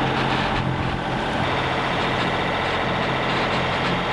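A sailboat's engine running steadily under way, a constant low drone.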